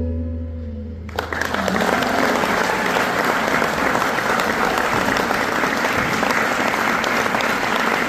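The last notes of the sitar and tabla ring out and fade. About a second in, the audience breaks into steady applause.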